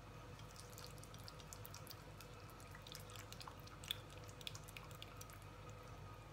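Silicone pastry brush beating an egg yolk in a small glass bowl: a run of quick, soft, wet clicks and ticks, with one sharper tap about two-thirds through, over a faint steady hum.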